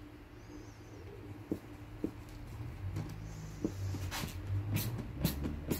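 Hand screwdriver working a screw into the metal Land Rover door-top frame beside the glass: a few light clicks, then a quicker run of sharp ticks and scrapes in the last couple of seconds. A low hum sits underneath from about halfway.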